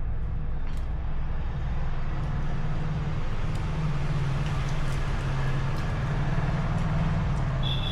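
Steady low mechanical rumble with a few faint clicks, and a short high-pitched beep near the end.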